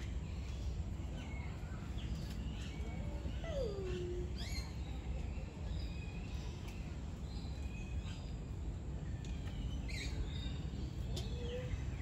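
Several birds calling: scattered short, high chirps and whistles, with one lower whistle gliding downward about three and a half seconds in, over a steady low rumble.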